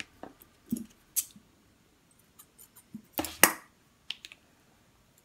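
Light clicks and rustles of ribbon, needle and thread being handled while a petal is hand-stitched. The loudest is a sharp click with a rustle a little after three seconds.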